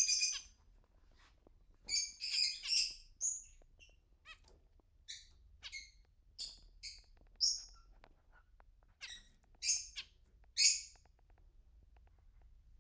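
Caged pet birds giving short, high chirps, about a dozen scattered through with quiet gaps between. A louder burst of chirping fades out just at the start.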